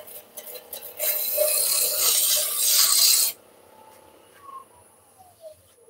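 Spindle roughing gouge cutting a spinning wooden blank on a woodturning lathe: a steady hiss of shavings for about two seconds that stops suddenly as the tool comes off. These are the final light cuts that true the blank to a cylinder. The lathe then runs on quietly with a faint falling whine as it slows.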